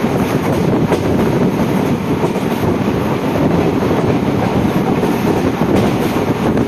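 Passenger coach of an Intercity express running at speed, heard at an open door: a steady rumble and rattle of wheels on the rails, with wind rushing past.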